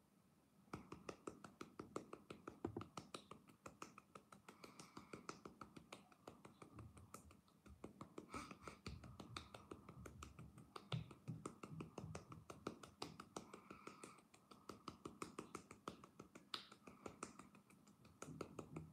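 Fingertips tapping quickly and lightly on a puffed-out cheek: a run of faint, rapid pats, several a second.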